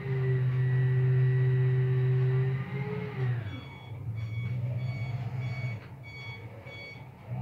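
Roll-off bin truck's engine running with a steady whine that falls away about three seconds in, then the truck's reversing alarm beeping about twice a second as it backs up to the bin.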